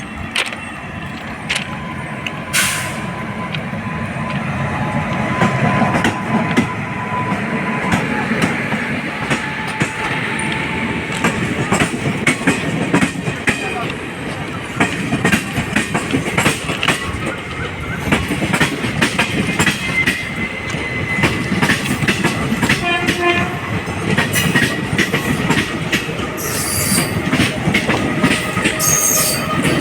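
Passenger train running at speed, with steady rumble and the wheels clattering over rail joints. A short horn blast sounds about two-thirds of the way through.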